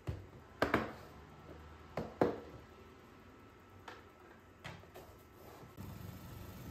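Kitchen handling sounds from a plastic food container and a wooden spoon on a counter: a string of sharp clicks and taps, two close pairs in the first couple of seconds, then lighter ones. Near the end a faint steady low noise comes in.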